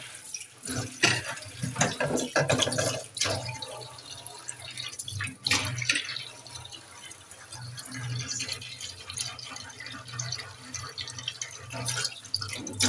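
Stainless steel kitchen sink being scrubbed and rinsed by hand: irregular water splashing and dripping with wet rubbing on the steel, broken by several sharp splashes. A steady low hum runs underneath.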